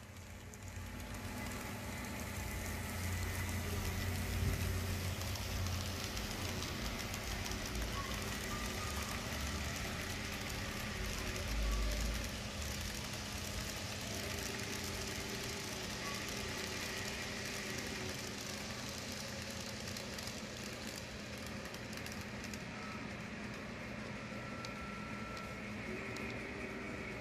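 HO scale model freight train running on the layout: a steady mechanical running noise, with a couple of low bumps in the first half.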